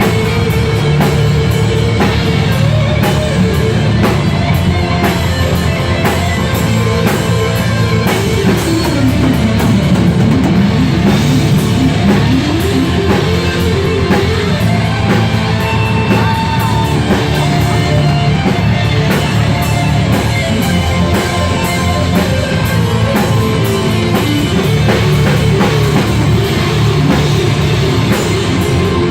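Live rock band playing loudly, with a drum kit and electric guitar. A melodic line slides down in pitch and back up about eight to eleven seconds in.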